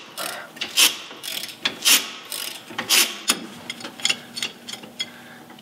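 Socket ratchet clicking as it works loose the nuts on a leaf-spring U-bolt, with sharp metallic clicks about once a second, then lighter ticks in the second half.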